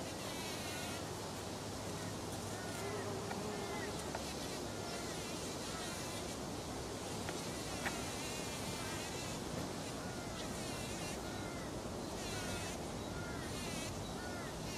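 Bumblebee buzzing steadily as it forages down among the stamens inside a rose flower.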